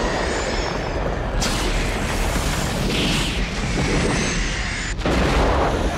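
Film sound effects of a massive eruption: a loud, continuous deep rumble with hissing steam and gas, shifting abruptly about a second and a half in and again near five seconds.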